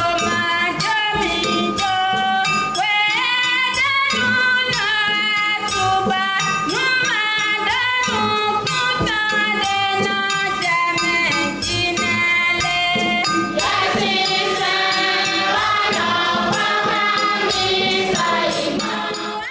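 Church choir of women singing a hymn together, with shaken rattles keeping the beat. The singing grows fuller about two-thirds of the way through.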